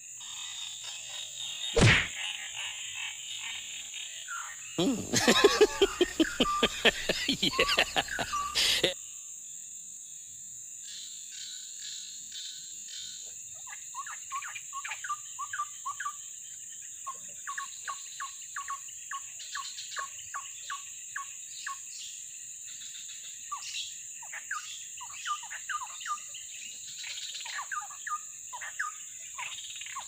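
Steady high insect drone with animal calls over it: a sharp knock about two seconds in, a loud pulsing call lasting about four seconds, then many short falling chirps repeating in quick runs.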